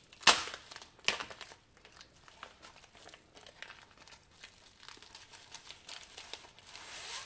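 White bubble-lined plastic pouch being handled and its end flap peeled open: crinkling plastic, with two sharp crackles about a third of a second and a second in, then small scattered crinkles, and a longer rustle building near the end.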